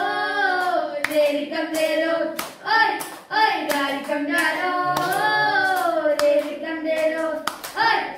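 Boys singing a song together at a microphone, with sharp hand claps keeping time about twice a second.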